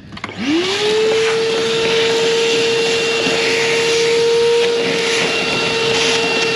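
Vacuum cleaner switched on about half a second in, its motor spinning up with a quick rising whine, then running steadily with a loud rush of air.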